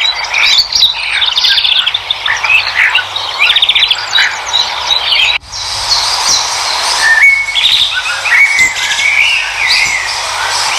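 Several birds chirping and trilling together over a steady background hiss. About halfway through, the sound cuts out abruptly for a moment and the birdsong resumes with different calls.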